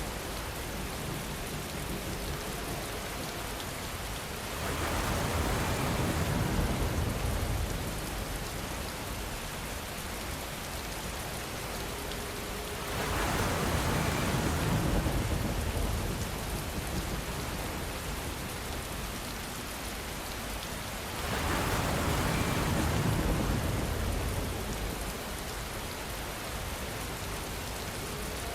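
Steady rainfall, a dense even hiss of drops. It swells louder for a few seconds three times, about eight seconds apart.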